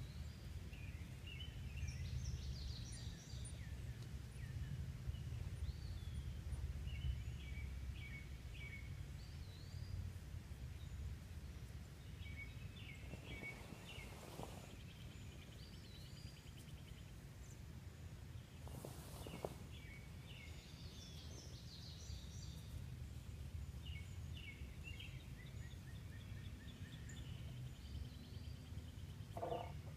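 Small birds chirping and singing throughout over a steady low rumble, with two brief rustling noises near the middle.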